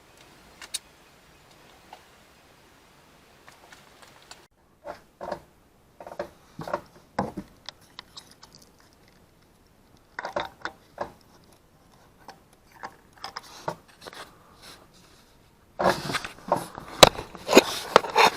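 Hand tools clicking and knocking at the spark plugs of a Honda Odyssey V6, in short scattered bursts, then a dense stretch of scraping and rattling near the end as a stuck rear plug resists coming out.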